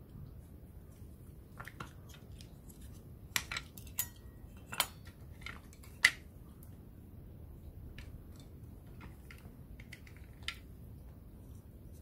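Plastic parts of a TV remote control being handled: a scattering of sharp clicks and light knocks, most of them in the first half, the loudest about six seconds in.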